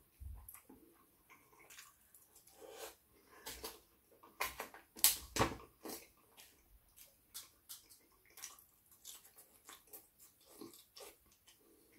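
Wet chewing and mouth smacking as someone eats doner kebab meat with chips and salad: a run of short, crackly smacks, loudest about five seconds in.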